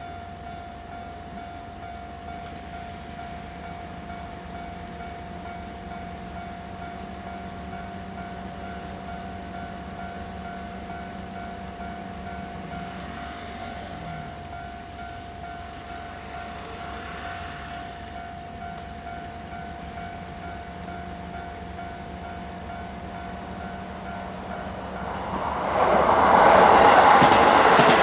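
Japanese railroad crossing warning signal ringing with a steady, repeating tone. Near the end a train arrives and runs loudly through the crossing.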